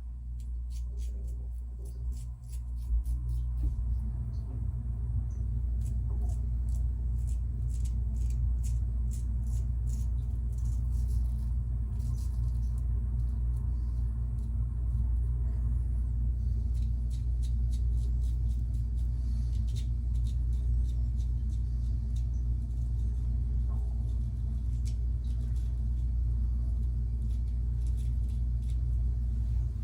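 Steady low rumble. Over it, many quick, faint scraping ticks of a Weck razor's blade stroking through lathered stubble, thickest in the first half.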